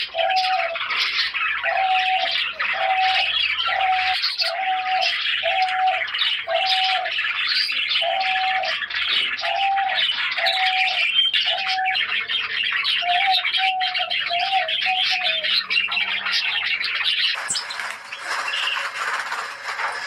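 Diamond dove cooing: a regular series of short, even coos, about three every two seconds, quickening into a wavering run before they stop a few seconds before the end. Under the coos runs a dense high chirping of many small aviary birds.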